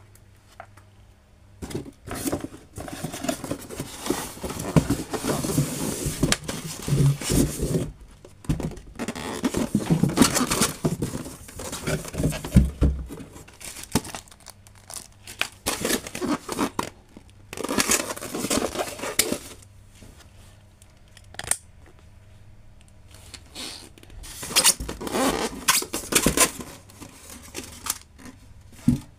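Cardboard box and styrofoam packing insert scraping and rubbing as they are handled and pulled apart, with plastic wrapping crinkling, in irregular bursts separated by short pauses.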